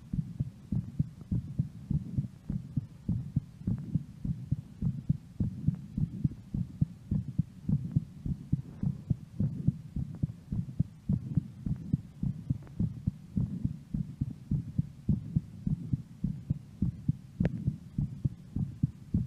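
A woman's heartbeat recorded close against the chest, beating steadily and regularly as low, thudding pulses while her heart recovers after a workout.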